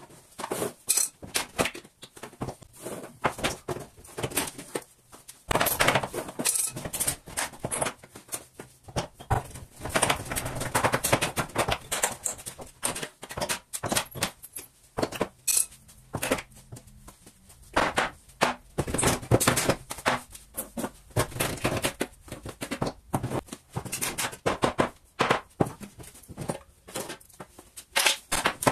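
Irregular knocks, thuds and cracks of hand tools working on wooden battens as they are pried off a plank wall, with a few longer stretches of wood scraping and creaking.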